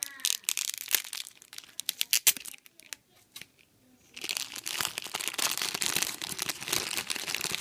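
Thin clear plastic bag crinkling as it is unwrapped by hand: scattered crackles at first, a brief lull about three seconds in, then a dense run of crinkling from about four seconds on.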